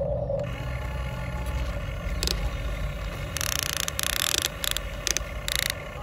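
Huina remote-control excavator's small electric motors whining steadily as the arm swings the bucket down. Several short scraping bursts come in the second half as the bucket digs into the loose dirt.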